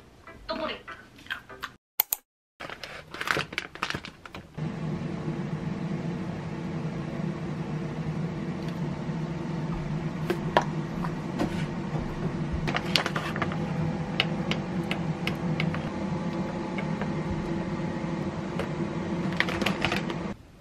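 A few light spoon clinks, then a steady electrical hum of a kitchen appliance running, with scattered clicks and taps of utensils and containers over it. The hum stops just before the end.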